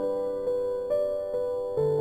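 Background music: a gentle keyboard melody, single notes struck about twice a second, each fading away.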